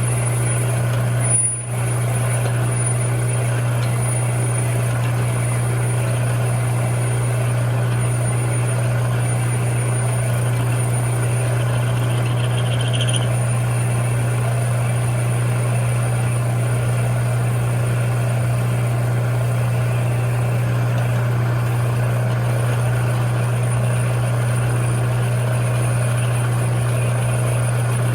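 Metal lathe running steadily with a constant motor hum and a faint high whine, turning down the outside of a 14 mm spark plug socket so that it fits down into a tight spark plug well.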